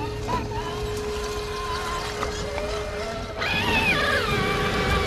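RC crawler's electric motor and gear drivetrain whining as it creeps over roots and leaves. The pitch rises and falls with the throttle, with a louder, falling whine about three and a half seconds in.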